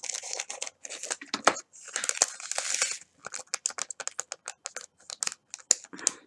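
A small plastic bag of diamond-painting resin drills crinkling as it is handled and emptied, then the drills pattering into a plastic sorting tray and rattling as the tray is shaken: many quick clicks through the second half.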